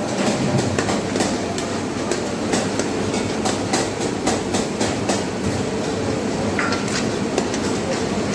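A steel ladle and tongs clink and scrape against a large metal karahi as mutton karahi is stirred over a high gas flame, with sharp irregular clinks several times a second. Under them runs a steady sizzle of the gravy and the roar of the burner.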